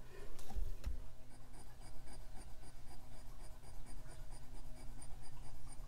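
Antique gold jewelry piece rubbed against a black touchstone: a faint scratching as it lays down a fresh streak for acid testing of its karat.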